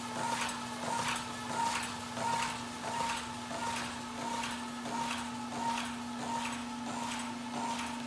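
AdvantageCS25 carton converting machine running as it folds 24pt cardstock auto-lock cartons. It gives a steady hum with a regular clack about three times a second.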